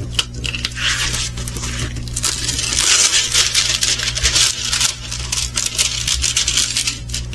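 Plastic packaging of a diamond painting kit crinkling and rustling as it is handled and opened, with many small clicks and rattles, over a low steady hum.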